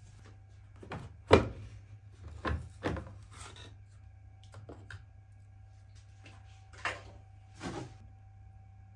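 Plastic clacks and knocks from a top-loading washing machine's detergent dispenser drawer being pulled out and handled with a plastic scoop: about six short knocks, the loudest about a second and a half in, over a faint steady hum.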